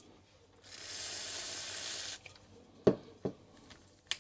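Aerosol contact cleaner sprayed from a can with a straw in one steady hiss of about a second and a half, onto a keyboard's carbon contacts. Two sharp knocks follow, the first the loudest, and a short click near the end.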